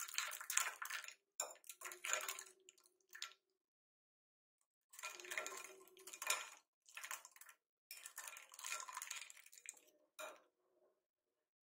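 Wire whisk stirring milk and ice cubes in a glass bowl, clinking and scraping against the glass in spurts. The whisking stops for about a second and a half near the middle, then goes on until shortly before the end.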